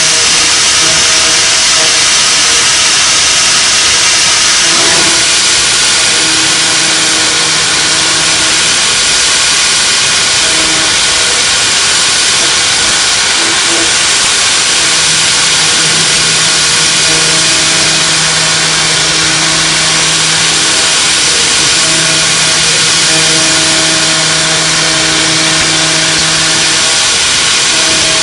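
CNC milling machine running: a loud steady hiss, with a low hum that drops in and out several times.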